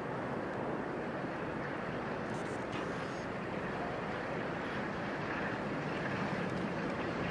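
Merchant Navy class steam locomotive 35028 Clan Line working hard as it approaches: a steady rushing exhaust noise that grows a little louder near the end, with wind buffeting the microphone.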